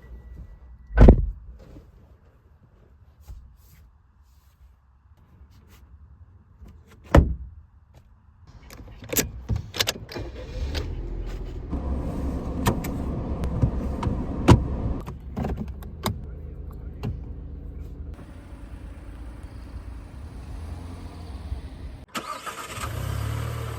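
Two heavy thuds like car doors shutting, then a car engine starting with a few clicks and running steadily. The running sound cuts off near the end, giving way to a brief hiss.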